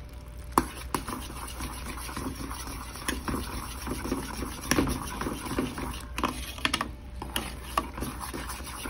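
Sugar syrup boiling in a metal pan, bubbling, while a spoon stirs it, with scattered sharp clicks of the spoon against the pan.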